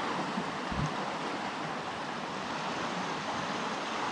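Steady rush of a fast-flowing stream, running hard after heavy rain, with one brief low bump just under a second in.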